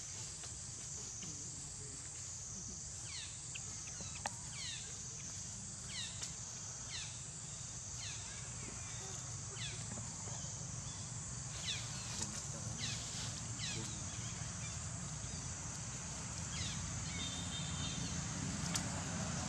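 Outdoor ambience: a steady high insect drone with a run of short chirps, each falling in pitch, about one or two a second through the middle, then thinning out.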